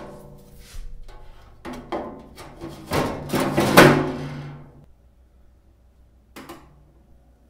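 Vented sheet-metal top panel of an air purifier cabinet being slid and seated on the housing: a run of scraping clunks and ringing metallic knocks over the first five seconds, loudest three to four seconds in. About six and a half seconds in, a single short click from the unit's control dial being turned.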